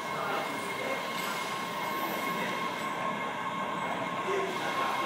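MBTA Red Line subway train rolling slowly into the station, a steady rumble with a steady high-pitched whine over it.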